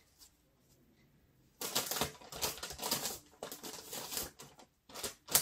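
A paper towel crumpled and rubbed in gloved hands, an irregular crinkling and rustling that starts about one and a half seconds in and lasts about three seconds, followed by a couple of sharp clicks near the end.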